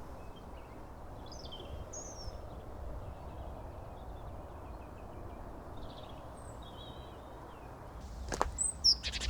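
Small songbirds chirping and singing in short scattered phrases over a steady low rumble of distant road traffic. Near the end come a few louder, sharper sounds.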